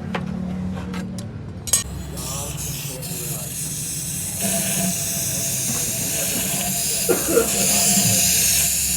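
A steady hiss over a low hum, growing louder about four and a half seconds in and then holding.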